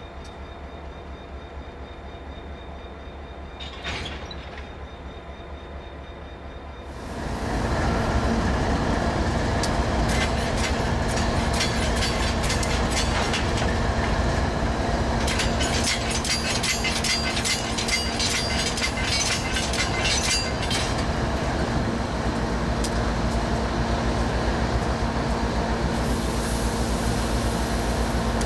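Diesel freight locomotives running at idle, a low steady rumble. About seven seconds in it becomes much louder, with a steady hum, and from about ten to twenty-one seconds a rapid metallic clicking and a thin high squeal from the train run over it.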